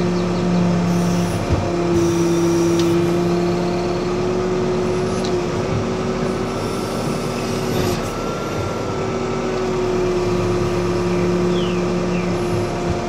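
Backhoe loader's diesel engine running steadily while the hydraulic digging arm swings and lowers, heard from inside the cab. A single knock comes about a second and a half in.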